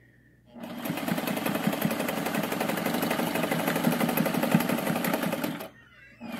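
American Home zigzag sewing machine running as it sews a zigzag stitch, with a rapid, even stitching clatter over the motor's hum. It starts about half a second in and stops near the end.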